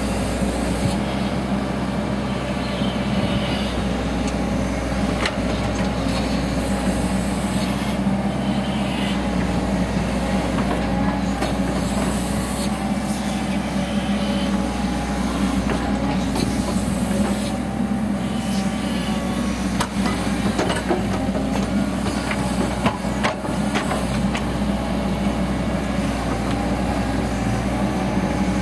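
Caterpillar tracked excavator's diesel engine running steadily under load while the bucket drags and levels soil, with a few sharp knocks from the bucket and tracks, mostly in the second half.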